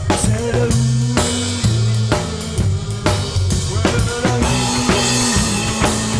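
Rockabilly band playing an instrumental passage: a drum kit with snare, rimshots and bass drum over stepping low notes from a double bass.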